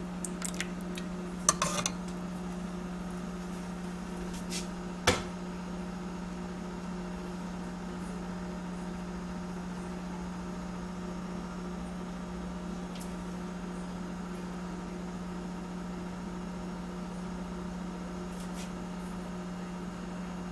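Metal ladle knocking against a metal cooking pot a few times in the first five seconds, the last knock the loudest, over a steady low hum.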